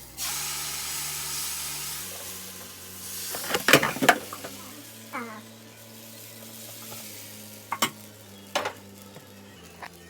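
Food frying and sizzling in hot oil in a pan. The sizzle starts suddenly, loud at first, then fades. A utensil clinks and scrapes against the pan in a cluster about four seconds in and twice more near the end.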